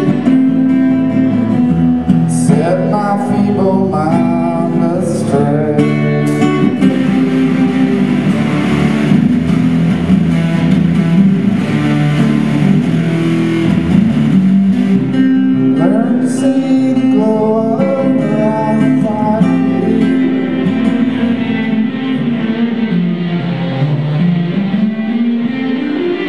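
A song played solo on an electric guitar through a small amplifier, strummed chords and picked melody, with a singing voice over it at times.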